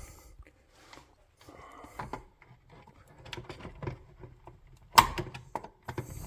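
A screwdriver prying at a stubborn wire connector on a garage door opener's control board: scattered small clicks and scrapes of metal on plastic, with one sharp, loud click about five seconds in.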